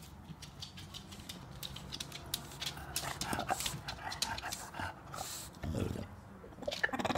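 English bulldog making faint vocal noises of protest, with a short, low grunt about six seconds in, amid scattered small clicks and taps.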